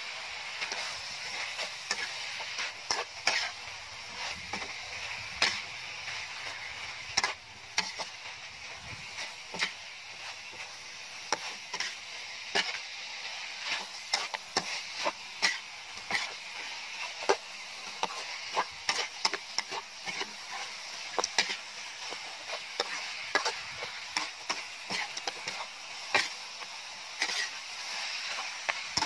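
Chicken, chillies and basil leaves sizzling in a metal wok as they are stir-fried, with a metal spatula scraping and clicking against the pan at an irregular pace.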